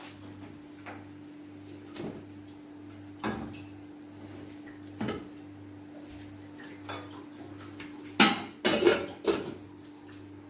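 Metal pots and lids clanking on a gas stove as a small stainless saucepan of water is set on a burner and its lid handled: a few scattered knocks, then a louder cluster of clanks about eight seconds in.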